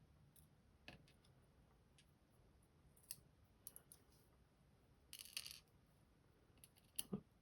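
Faint, sparse clicks of small lock key pins being tipped out of the lock's chambers and set down, with a short rattle a little past halfway.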